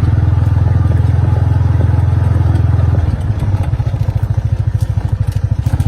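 An engine running close by with a steady, even pulse; about three seconds in it drops in level and its beat slows, as if throttling back.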